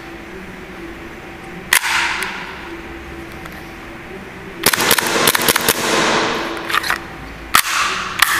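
Tokyo Marui Five-seveN gas blowback airsoft pistol firing: a single shot about two seconds in, then a rapid string of shots, then a few more spaced shots near the end. Each shot is a sharp crack of the slide cycling, with a hiss trailing after the rapid string.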